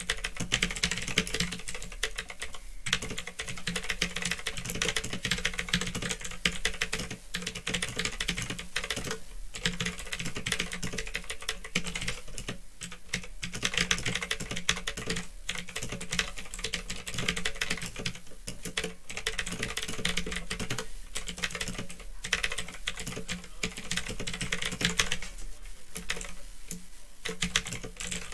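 Fast, continuous typing on a mechanical keyboard with Otemu blue clicky switches, a dense stream of key clicks broken by a few short pauses. A steady low hum from the old microphone runs underneath.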